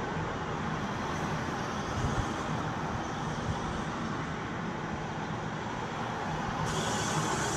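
Steady road traffic noise: an even rumble and hiss of passing vehicles with no distinct events.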